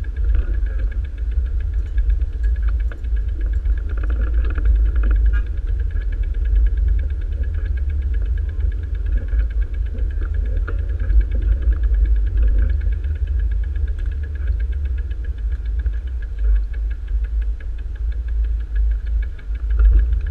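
Wind buffeting the microphone of an action camera on a moving bicycle, a continuous low rumble mixed with road noise from riding over asphalt.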